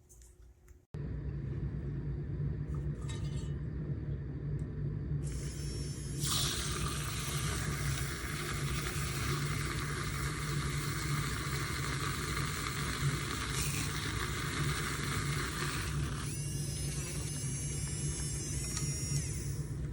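A handheld battery milk frother's small motor runs with a steady low hum. From about six seconds in, its whisk churns liquid with a bright, splashy hiss, and near the end a wavering whine joins in.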